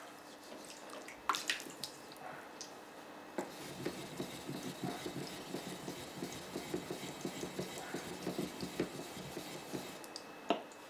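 Water splashing and dripping in a basin, then quick rhythmic rubbing strokes, about three a second, on a wet Japanese sword-polishing whetstone, starting about three seconds in and stopping near the end. A single sharp click follows.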